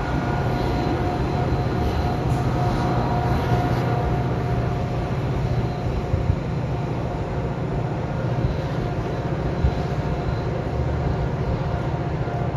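A train running through the station: a steady rumble with a constant whine held at one pitch, and a couple of brief knocks partway through.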